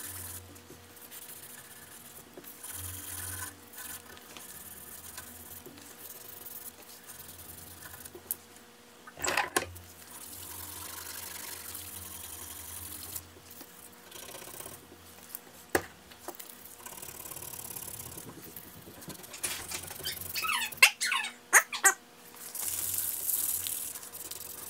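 Hand sanding a wooden knife handle with a strip of flexible sandpaper: a steady rubbing, broken by a few sharp clicks and, near the end, short squeaks.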